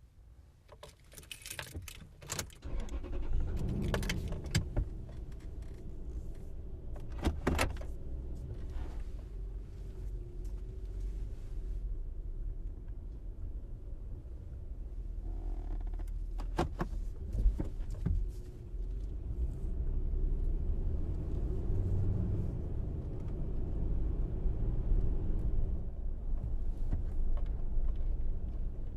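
Keys jangling with a few sharp clicks, then, about three seconds in, an SUV starts driving along a local street: a steady low rumble with a few knocks along the way.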